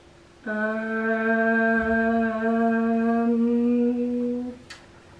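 A woman's voice humming one long steady note, starting about half a second in and held for about four seconds before stopping.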